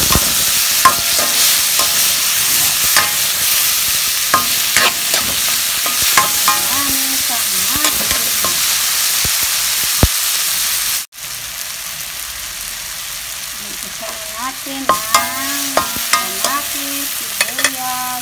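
Chopped onions and tomatoes sizzling in hot oil in a metal wok, stirred with a spatula that clicks and scrapes against the pan. About eleven seconds in the sound cuts out for an instant and comes back quieter.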